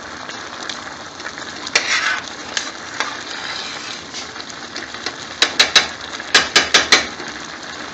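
Rice and water boiling in a pan on a gas hob, a steady bubbling. There is a single click about two seconds in, and two quick runs of sharp clicks in the last few seconds.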